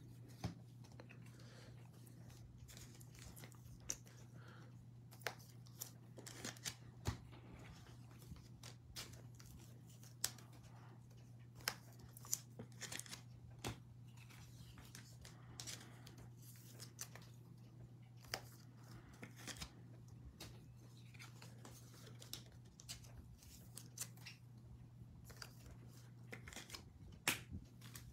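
Quiet room tone with a steady low hum, broken by scattered faint clicks and rustles of foil trading-card packs being handled, a little louder near the end.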